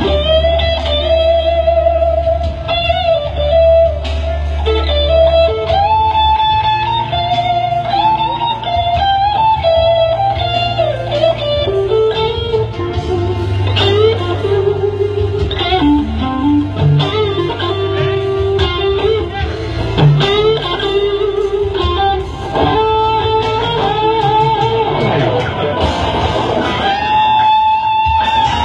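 Stratocaster-style electric guitar playing a melodic lead solo of long sustained notes with string bends, at times in two-part harmony, over a steady low bass backing.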